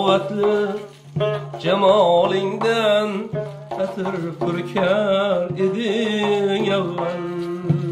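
A man singing long, ornamented phrases with a wavering vibrato. A plucked tar accompanies him, holding a steady low tone underneath.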